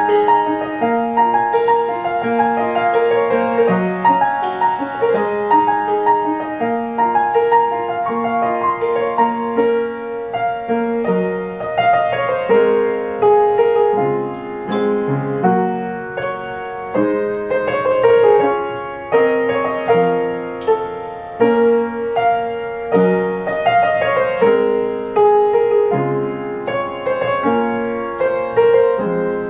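A live piano and percussion duo plays an instrumental piece. The piano carries the melody and chords throughout, with light percussion underneath.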